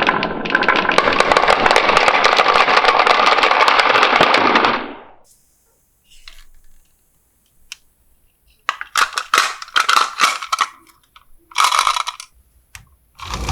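Many marbles clattering down a marble run track in a dense rattle that stops after about five seconds. After a pause come scattered single clicks and short runs of knocks as a few marbles roll and strike the track.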